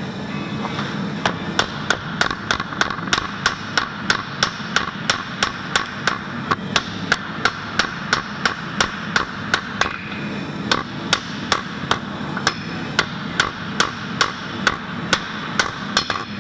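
Hand hammer striking a hot composite damascus billet on the anvil, about three blows a second with a short pause partway through. These are the first light passes that drive the flux out of the weld before any power hammer work.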